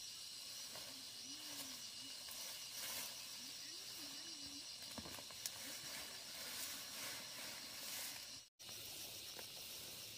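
Steady high hiss of rural outdoor ambience, with faint wavering low tones in the first half. The sound drops out for an instant about eight and a half seconds in.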